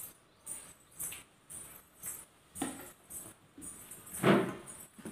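Light clinking and jingling of metal bangles and steel dishes as spices are tipped from a steel plate and mixed by hand into wet masala paste in a steel bowl, in short bursts about twice a second, with one louder knock or squish a little after four seconds.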